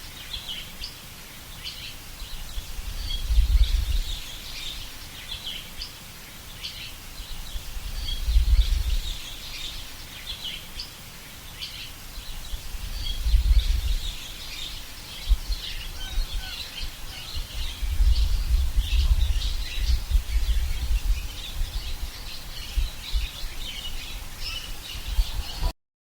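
Many small birds chirping and singing, over a deep rumble that swells and fades every five seconds or so. The sound cuts off suddenly just before the end.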